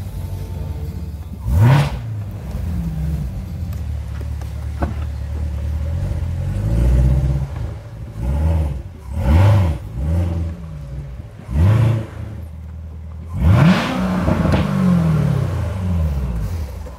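Chevrolet Corvette C7 Z06's supercharged 6.2-litre V8 idling with a deep rumble, blipped about half a dozen times: each rev rises and falls quickly.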